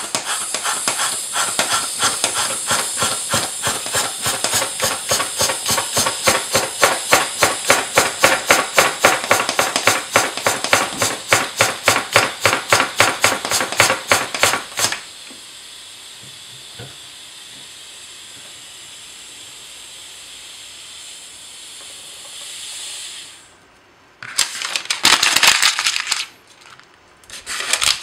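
Rhythmic puffs of hissing air, about four a second and growing louder, for about fifteen seconds, then a quieter steady hiss that fades out a few seconds before a loud noisy burst near the end.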